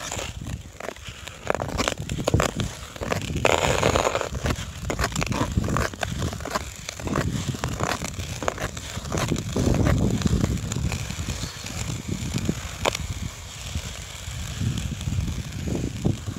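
Ice skate blades scraping and clicking on frozen lake ice, stroke after stroke, with many short sharp scrapes over a low, uneven rumble.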